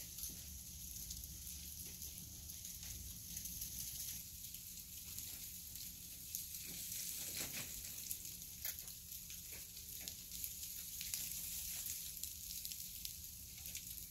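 Faint steady hiss with a low hum and scattered small ticks and crackles.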